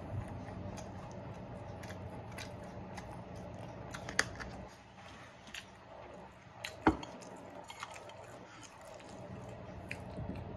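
Eating sounds: a white plastic fork clicking and scraping in a takeout container, with chewing, and two sharper knocks about four and seven seconds in. A steady low hum runs underneath and drops away for a few seconds in the middle.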